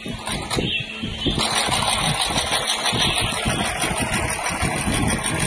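Long cylinder-arm industrial sewing machine running at speed, stitching a seam through felt: a rapid, even run of needle strokes that starts about a second in.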